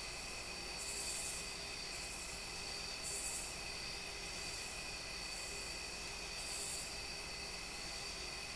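Insect chorus: a steady high trill that runs on unbroken, with a higher hissing call swelling and fading about every two seconds.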